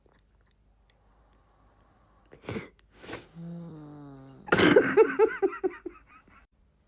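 A person making loud snoring noises: two short snorts, a groan falling in pitch, then a loud snort that breaks into a quick run of voiced, fluttering pulses.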